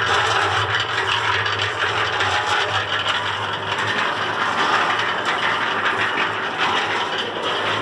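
Antique electric cement mixer running after years of sitting outdoors, still working. Its electric motor hums steadily under a continuous rattle from the turning drum.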